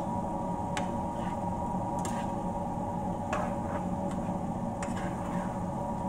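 Metal spoon stirring fried dried fish and peppers in a nonstick frying pan, with several sharp clicks and scrapes against the pan, over a steady hum.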